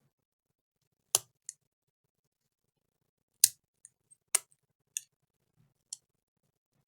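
About seven small, sharp clicks and taps at irregular intervals, the loudest about halfway through, from hand tools and parts being handled during a laptop repair.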